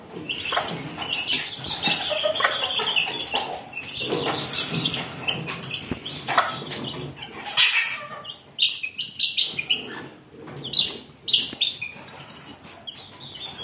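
Chicks peeping with many short, high chirps, and a hen clucking, while they feed.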